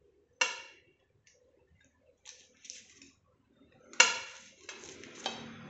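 A kitchen knife sawing through a soft cake on a plate: soft scraping, with two sharp ringing clinks, one about half a second in and a louder one about four seconds in, followed by rustling handling noise.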